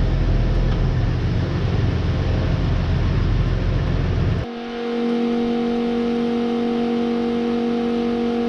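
A large engine running with a steady deep rumble. About four and a half seconds in it cuts off abruptly, and a few steady held tones take its place.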